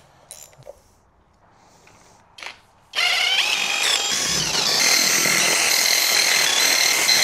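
DeWalt 20V cordless impact wrench running for about five seconds on the N55 engine's E10 Torx valve cover bolts, loosening them. It starts about three seconds in, its motor rising in pitch for about a second and then holding steady.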